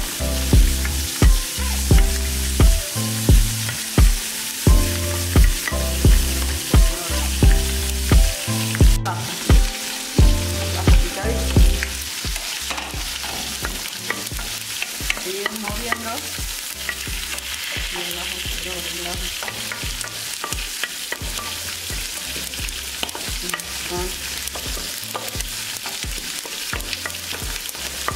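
Diced onions sizzling in hot oil in a stainless steel pot, stirred and scraped with a wooden spoon. Background music with a steady beat plays along, loud at first and quieter from about twelve seconds in.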